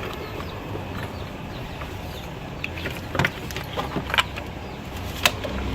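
Hand tools clinking and knocking on engine parts during engine-bay disassembly: a few short sharp metallic clicks in the second half, over a steady low background rumble.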